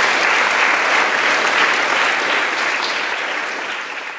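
A crowd of pupils applauding, a dense steady clapping that gradually fades away.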